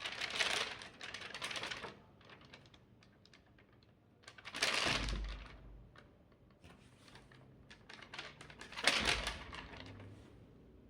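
Rapid clicking and tapping, broken by three louder bursts of noise, about four seconds apart.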